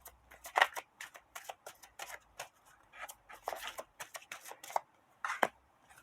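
A deck of oracle cards being shuffled and handled: a run of short, irregular flicks and taps.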